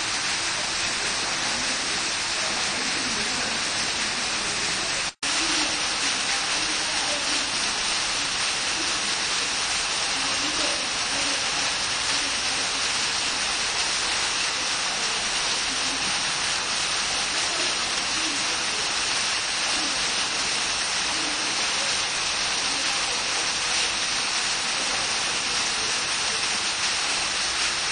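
Foam jet fountains splashing into a pool: a steady hiss of falling aerated water from several jets. The sound breaks off for an instant about five seconds in.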